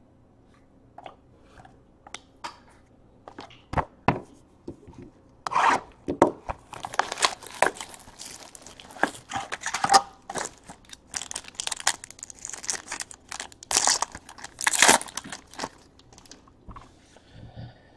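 Plastic shrink-wrap being torn and crumpled off a box of trading cards, a dense crinkling run in the middle stretch. A few light clicks and taps of handling come before it.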